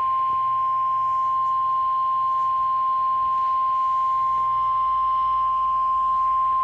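NOAA Weather Radio's 1050 Hz warning alarm tone: one steady, unbroken high tone. It is the alert signal that comes before a watch or warning broadcast, here a tornado watch.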